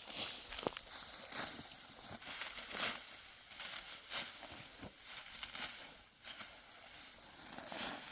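Dry, ripe wheat stalks crackling and rustling as they are harvested by hand, a crisp crunching swish roughly once a second.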